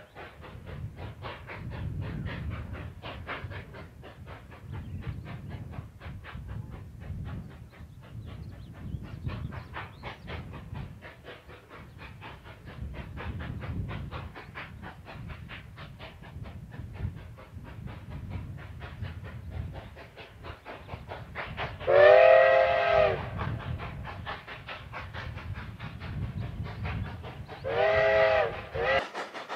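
Two K-36 2-8-2 steam locomotives double-heading a passenger train, their exhaust chuffing in a fast, even beat over a low rumble. About three-quarters of the way through, one sounds its chime steam whistle in a long blast, and a shorter blast follows near the end.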